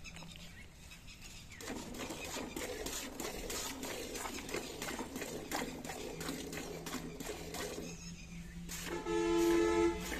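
Hand milking of a buffalo: repeated squirts of milk hitting a pail in a quick, uneven rhythm. Near the end a brief steady pitched tone, like a honk, sounds over it.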